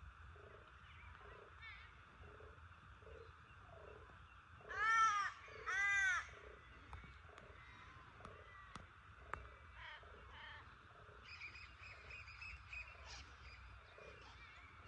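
A crow cawing loudly twice, two drawn-out arched calls about a second apart, over a faint, regular low pulsing of about two beats a second, with quieter high bird chatter near the end.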